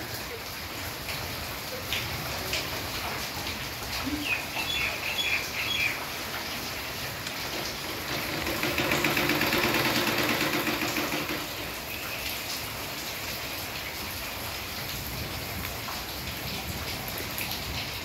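Steady rain falling, with a few short high chirps about four to six seconds in and a louder swell of sound between about eight and twelve seconds.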